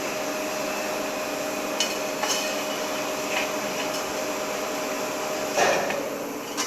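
Longitudinal seam-welding machine running with a steady hum and hiss, with a few light metallic knocks. A louder metal clank comes about five and a half seconds in, and the hum stops with it.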